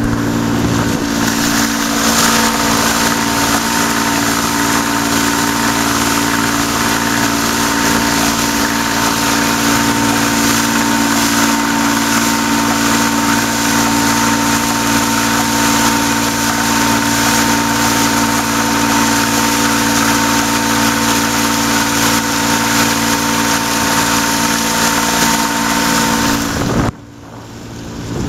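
Electric outboard motor driving a catamaran under way: a steady electric whine and hum over rushing, spraying water and wind. The motor is cavitating, with water spraying up. The sound drops away suddenly near the end, then builds back up.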